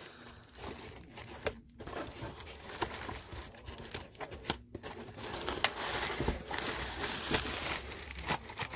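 Cardboard and plastic packaging rustling and crinkling, with scattered taps and scrapes, as an item is worked out of a small cardboard box. The rustling gets busier in the second half.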